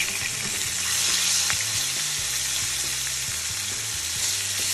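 Sprats sizzling as they fry in a pan of hot oil, a steady crackling hiss. A few light clicks come from metal tongs turning the fish over one at a time.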